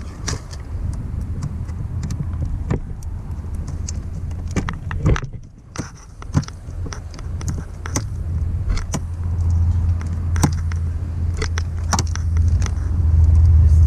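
Scattered small clicks and rattles of loose wiring being handled and tied up under a car's dashboard, over a steady low hum.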